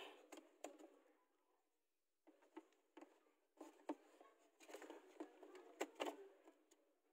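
Faint handling noise in near silence: scattered light clicks and taps with a little rustling, from hands adjusting parts to make them fit.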